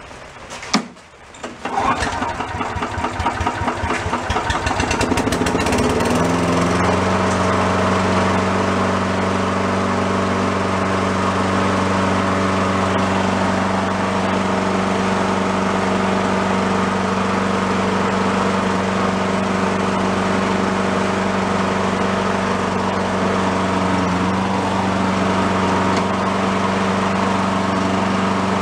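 Small four-stroke push lawn mower engine pull-started: it catches about a second and a half in, speeds up over the next few seconds, then runs steadily at an even speed.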